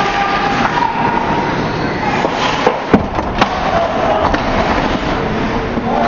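Ice hockey play heard from rinkside: a steady rush of skates and arena noise, with sharp cracks of stick or puck against the boards about three seconds in.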